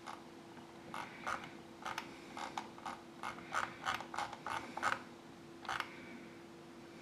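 A run of short, irregular clicks from a computer mouse being clicked and scrolled, over a steady faint hum.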